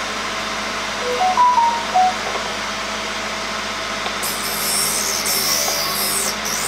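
MR-13A drill bit grinder's motor running with a steady hum; from about four seconds in, a high hissing grind as the drill point is pressed against the grinding wheel.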